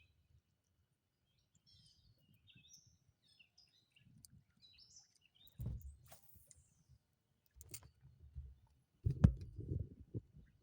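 Small birds chirping in short, quick calls, with a couple of sharp clicks midway. Near the end comes a run of low knocks and thumps, the loudest sound here.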